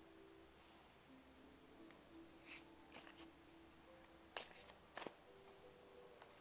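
A few sharp clicks, the two loudest about four and a half and five seconds in, over faint background music of soft held tones.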